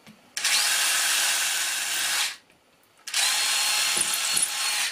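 DeWalt cordless drill driver running a small 1.5 mm bit into a wall in two runs of about two seconds each, with a short pause between. These are test holes drilled to find where a stud lies behind the dry-lined wall.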